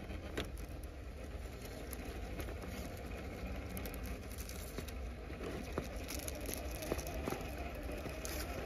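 Scale RC rock crawler, driven by a Hobbywing Fusion SE 1800kv motor, creeping over rock. Its tyres and chassis make scattered small clicks and crunches on stone and loose gravel over a faint motor whine.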